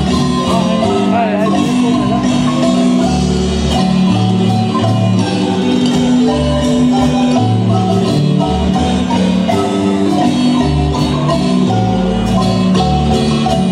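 A live marimba band plays a tune, with mallet notes over deep bass notes and percussion strokes, amplified through the PA speakers at a steady loud level.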